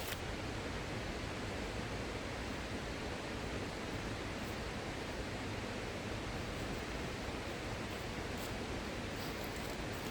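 Steady, even rushing noise with no distinct events, broken only by a few faint light ticks.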